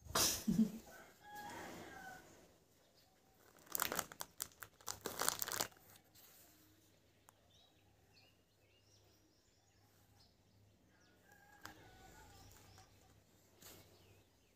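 Plastic biscuit packet crinkling as it is handled, in two bursts, one at the start and another about four seconds in. Faint short bird calls in the background, a couple near the start and again near the end.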